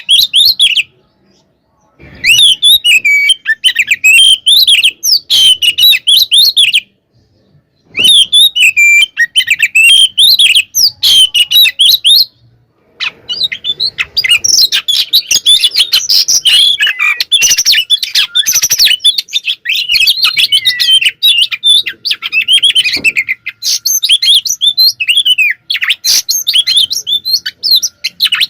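Oriental magpie-robin (kacer) singing loud, fast, full song: rapid chirps and warbling glides run on with hardly a pause, broken by short silences about a second in, near seven seconds and near twelve seconds.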